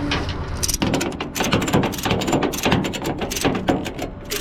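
Tie-down ratchet being worked to tighten the securing strap on a car loaded on a tow truck: a fast, irregular run of sharp metal clicks starting about a second in.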